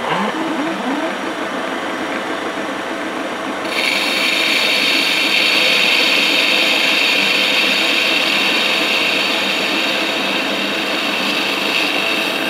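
CNC milling machine running as it turns a metal Foster coupling. A bit under four seconds in, a steady high-pitched cutting whine joins the machine noise and holds, as the tool bites into the part.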